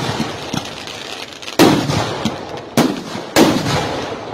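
Aerial fireworks shells bursting: three loud bangs, about a second and a half in, near three seconds, and just after, each trailing off in an echoing rumble, with lighter crackling pops between.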